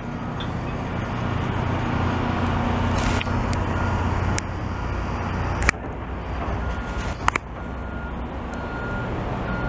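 Diesel engines of heavy snow-removal machinery (a wheel loader with a front-mounted snowblower, dump trucks) running steadily in a low drone. A few sharp clicks or knocks come through, and a reversing alarm beeps at a steady pace in the last three seconds.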